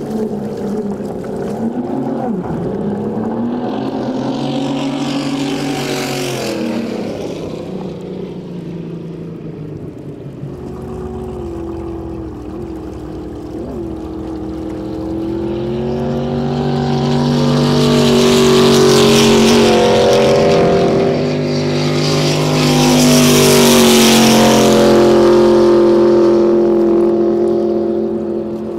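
Turbocharged speedboat engines running hard as the boats pass at speed, their pitch rising and falling, with a hiss of spray. The loudest passes come in the second half.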